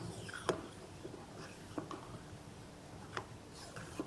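Hand vacuum oil-sampling pump being worked to draw engine oil up a plastic tube from a drum: four sharp clicks of the plunger, roughly one every second, over a faint rustle.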